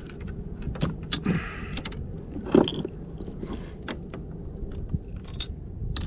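Metal fishing tackle being handled: hooks, lure and wire clinking and rattling, with scattered knocks and scrapes and one louder knock near the middle.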